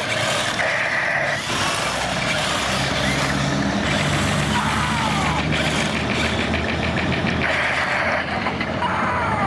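Two toy infrared remote control battle tanks battling, their small electric drive motors and gearboxes whirring steadily. Over this come repeated electronic firing sound effects: falling tones and short steady beeps, with a rapid clicking rattle a little past the middle.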